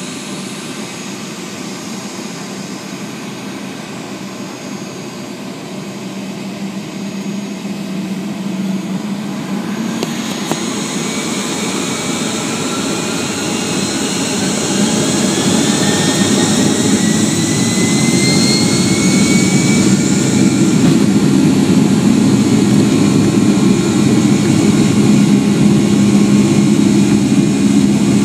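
Boeing 757-200's Pratt & Whitney PW2000 turbofan engines, heard from inside the cabin, spooling up to takeoff thrust: the noise grows steadily louder from about a quarter of the way in, with a rising whine through the middle, then holds steady and loud.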